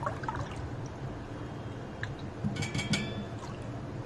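A silicone spatula stirring a liquid mixture of colostrum milk and jaggery in a steel bowl, with a few light knocks against the bowl about two and a half to three seconds in.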